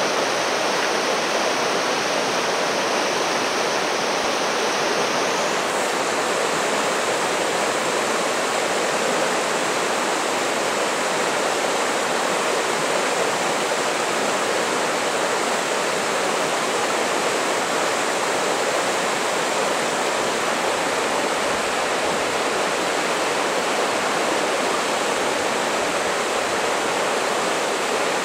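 The Dungeness River rushing over shallow, rocky rapids and gravel riffles: a steady wash of running water.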